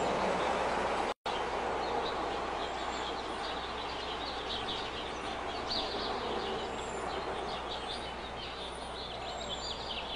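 Steady outdoor background noise that cuts out for an instant about a second in, followed by birds chirping and twittering.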